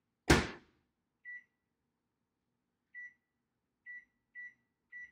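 Microwave oven door shut with a sharp bang, then five short high keypad beeps as the cooking time is entered.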